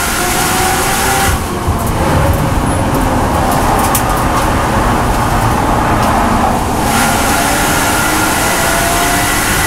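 A BMW M240i race car's turbocharged straight-six, heard from inside the cabin. It runs at full throttle with its pitch rising, lifts off at about a second and a half in and stays quieter and duller for several seconds while the car slows and drops from fourth to third gear, then goes back to full throttle near the end with the pitch climbing again.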